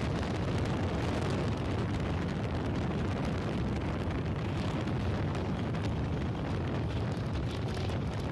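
Wind buffeting the microphone from a moving vehicle, a steady dense rumble strongest in the low end, with road and vehicle noise beneath it.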